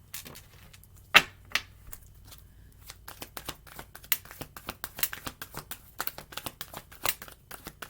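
A deck of tarot cards being shuffled by hand: a run of quick papery card snaps and flicks, with one sharper snap about a second in and the snaps coming thick and fast in the second half.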